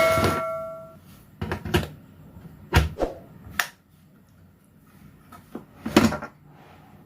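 A struck metal object ringing and fading out over the first second, followed by a handful of scattered knocks and clunks, like parts and tools being handled on a bench.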